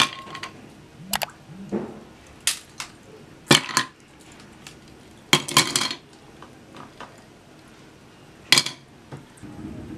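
Ice cubes going into a double-walled glass of black coffee, clinking against the glass and each other: about eight short, sharp clinks, spaced irregularly, some in quick pairs.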